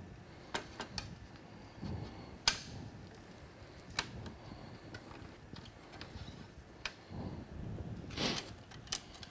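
Scattered clicks and rustles of a mesh panel's plastic edge strip and fabric being handled and pressed into the aluminium frame's locking strip, with one sharper click about two and a half seconds in and a longer rustle near the end.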